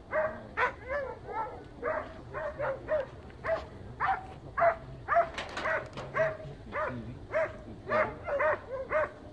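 Hunting hound (zagar) baying at a wild boar: short, high, pitched barks repeated steadily at about two a second.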